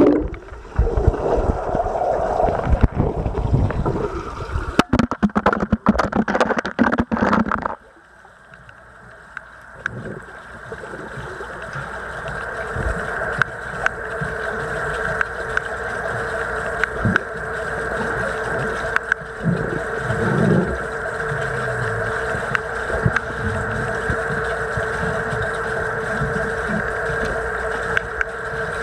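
Water splashing and bubbling loudly around a camera plunging into a swimming pool, stopping abruptly about eight seconds in. After that comes the muffled underwater sound of the pool: a steady hum, with a few soft low thumps as a dog paddles overhead.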